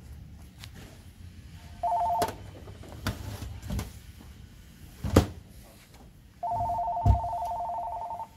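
A telephone ringing with a two-tone trill: a short ring about two seconds in and a longer one near the end. Several sharp knocks, the loudest about five seconds in, come from things set down on the metal-topped bench.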